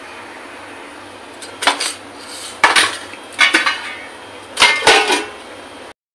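Metal kitchen dishes and utensils clattering and clinking in four short bursts, each about a second apart, over a steady background hiss.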